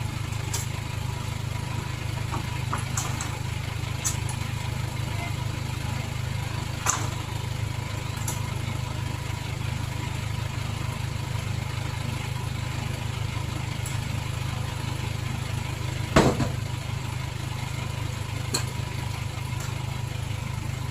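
Crane lorry's engine running steadily at idle, with a few sharp knocks, the loudest about sixteen seconds in.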